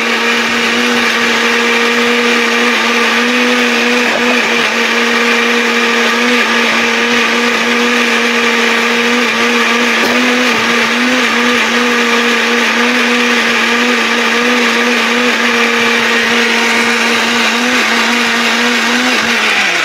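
Electric mixer-grinder's motor running at a steady high speed with a constant hum, grinding soaked red chillies and a little water into paste in a steel jar. It cuts off shortly before the end.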